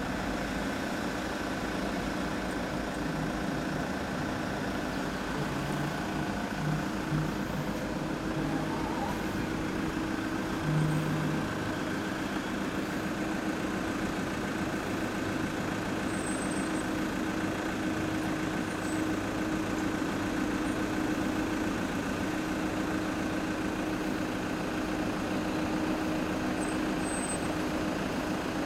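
A vehicle engine idling steadily: an even, unchanging hum with no revving.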